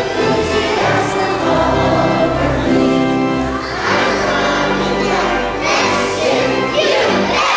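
A group of children singing a song together in chorus, many voices holding notes.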